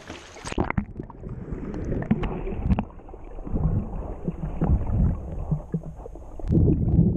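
Water heard from a camera submerged in a lake: muffled low sloshing and rumbling with scattered clicks and bubbly knocks. About half a second in, the open-air splashing and hiss cut off as the camera goes under, and near the end the low surging grows louder.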